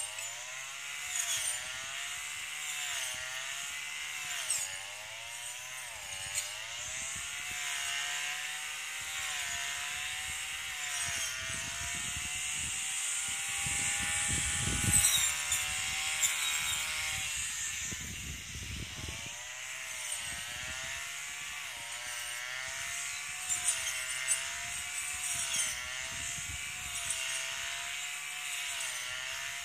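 Brush cutter's small two-stroke engine running while cutting grass, its pitch wavering up and down about once a second, held steadier and higher for a few seconds midway.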